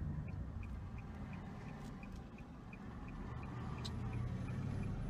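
Inside a car, a low engine and road rumble, with the turn-signal indicator ticking about three times a second. The rumble grows stronger near the end.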